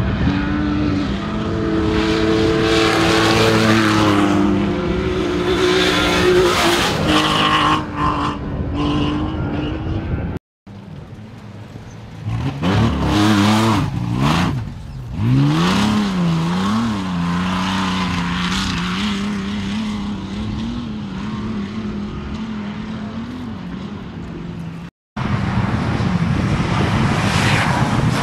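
Off-road race truck engines revving hard as the trucks drive past over rough dirt, the engine pitch rising and falling sharply with the throttle. The sound breaks off abruptly twice, about ten seconds in and near the end.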